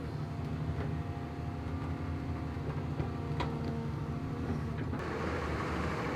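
Engine of earth-moving machinery running steadily with a low hum. About five seconds in, the hum gives way to a broader rushing noise.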